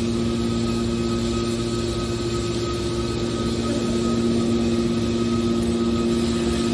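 Hydraulic scrap-metal baler's motor and pump running with a steady, even hum.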